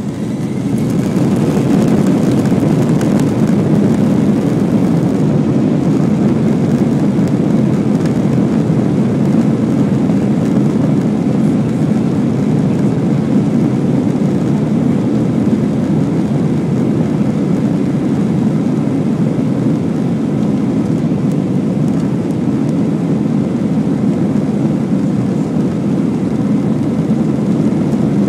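Jet airliner's turbofan engines spooling up to takeoff thrust about a second in, with a faint rising whine, then a loud, steady roar heard from inside the cabin through the takeoff roll.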